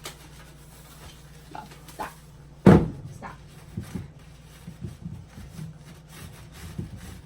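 A loud thump a little under three seconds in, followed by a run of lighter knocks and clicks from things being handled, over a faint steady low hum.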